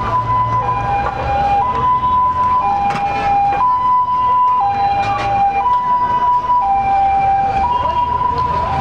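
A two-tone siren sounding steadily, switching between a high and a low note about once a second, with low street hum and a few light clicks underneath.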